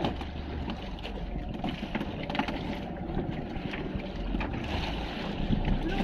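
Wind on the microphone and sea water around a small fishing boat, over a steady low hum, with a few light knocks.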